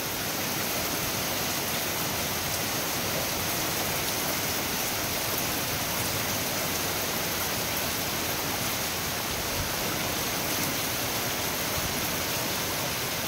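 Heavy rain pouring down on a street in a steady, even hiss, with no break or change in level.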